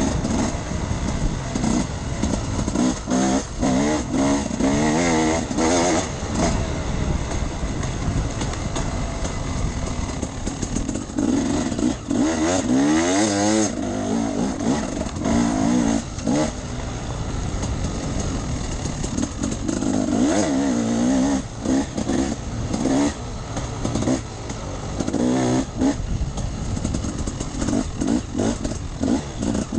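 Enduro dirt bike engine revving up and down again and again while riding off-road, its pitch climbing sharply about halfway through. A dense rushing noise runs under the engine.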